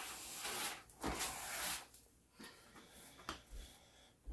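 Broom bristles sweeping across a wooden floor in two swishing strokes, followed by a few light knocks.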